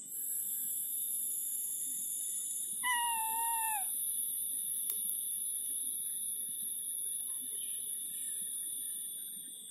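A domestic tabby cat gives a single wavering meow, about a second long and falling in pitch at the end, a few seconds in. A steady high-pitched whine runs throughout, with one faint click about five seconds in.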